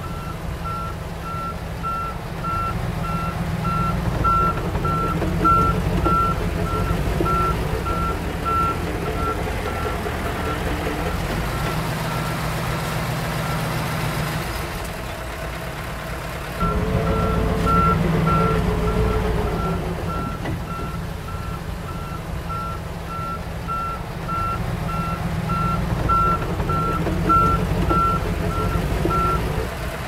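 A Komatsu D31 bulldozer's diesel engine running while its reverse alarm beeps about twice a second as it backs up. About halfway through, the beeping stops for a couple of seconds and the engine gets louder, then the beeping starts again.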